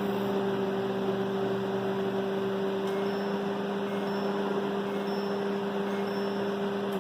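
Samsung MW1266 microwave oven running: a steady hum with fan noise, switched on as a working test of its rebuilt keypad.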